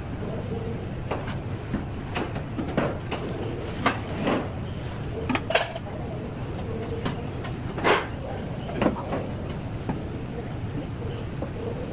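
Metal utensils and dishes clinking and clanking now and then over a steady low hum, the sounds of cooking and serving at a tteokbokki stall; the knocks come irregularly, most of them in the middle of the stretch.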